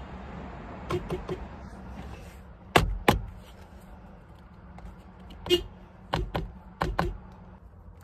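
Subaru car horns tapped in quick, brief beeps, a few short toots about a second in and more near the end, with two loud sharp thumps about three seconds in.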